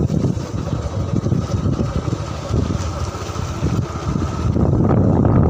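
A small vehicle travelling down a lane, heard from on board: a steady low rumble with wind buffeting the microphone, getting louder near the end.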